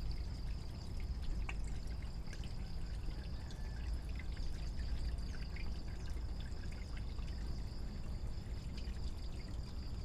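Water pouring steadily into a shallow tarpaulin frog-rearing tank, with small splashes and clicks over the running water.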